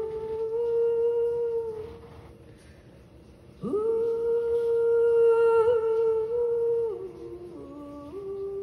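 A woman's voice vocalizing long, wordless held notes into a microphone. One note lasts about two seconds, then after a short pause her voice swoops up into a note held about three seconds, followed by a few lower, shorter notes near the end.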